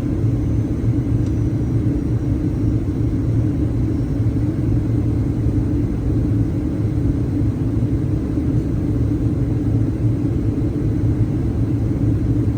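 Steady low rumble of engine and airflow noise inside the cabin of a Boeing 737-900ER in flight, even in level with no bumps or changes.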